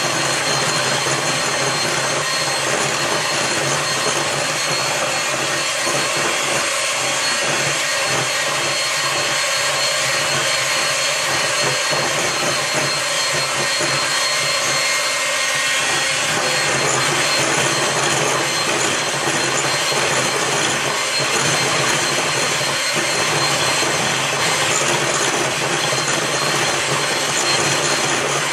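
Electric hand mixer running steadily, its beaters whipping heavy cream in a bowl.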